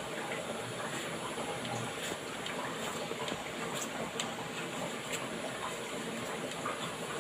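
Knife cutting tomatoes on a chopping board: faint, sharp clicks about once a second over a steady hiss.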